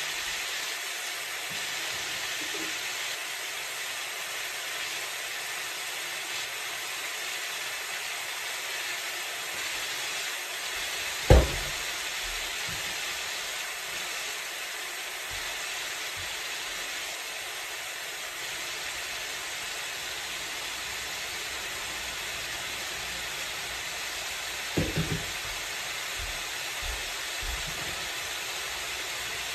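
Ground beef, peppers and onions sizzling steadily in a skillet. One loud knock partway through and a quick cluster of softer knocks later.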